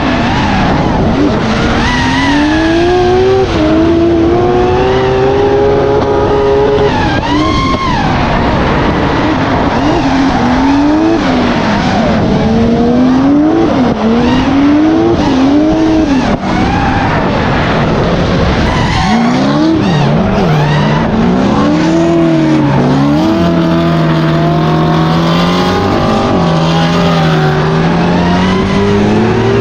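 Drift cars' engines revving hard, their pitch climbing and dropping again and again, over a continuous screech of spinning, sliding tyres.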